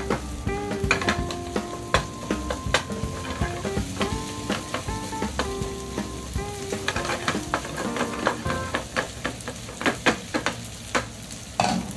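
Fried rice sizzling in a nonstick frying pan while a wooden spatula stirs and tosses it, scraping and knocking against the pan many times.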